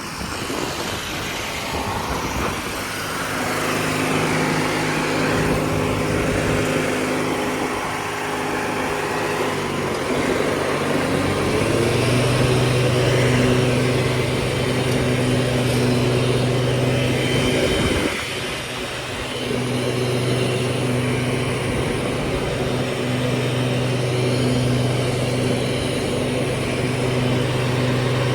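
1997 MTD Yard Machines riding lawnmower engine running steadily while mowing. Its pitch rises about a third of the way in, dips briefly about two-thirds of the way in, and picks back up.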